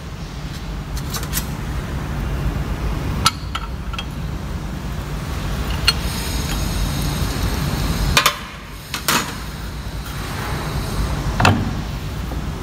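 A handful of sharp, separate metallic clinks and taps as a hand tool works on a mechanical diesel injector clamped in a steel bench vise, over a steady low background hum.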